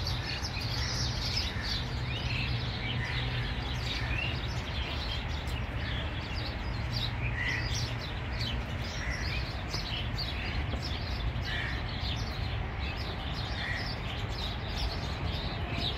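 Several wild birds chirping and calling, many short notes overlapping, over a steady low background rumble.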